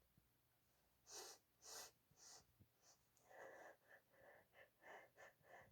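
A woman's faint, breathy build-up to a sneeze, her nose irritated by chikni. After about a second of quiet come two or three deep sharp breaths, then a quick run of short hitching breaths from about three seconds in.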